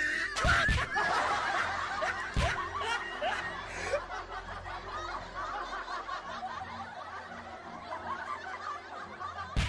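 People laughing and snickering, loudest in the first few seconds and then dying down. A few sharp knocks come about half a second in, around two and a half seconds, and again near the end.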